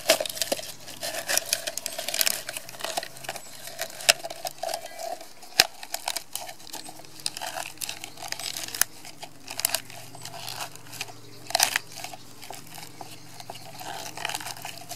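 Dry birch bark crackling and crinkling as rolled strips are pressed into a tin can. The crackles are irregular, with one sharper click about five and a half seconds in.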